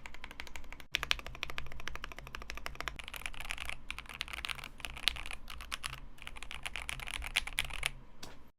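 Fast typing on a KBD67 Lite R3 custom mechanical keyboard with Alpaca linear switches lubed with Krytox 205g0 and filmed, on a polycarbonate plate with PBT keycaps: a dense, quick run of keystrokes with a few brief pauses, stopping suddenly near the end.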